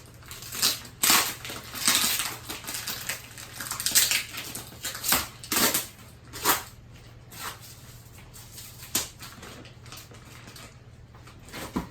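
Vacuum-packed pocket-spring mattress being handled and shifted out of its cardboard box: irregular scraping and crinkling bursts of wrapping and cardboard, mostly in the first nine seconds.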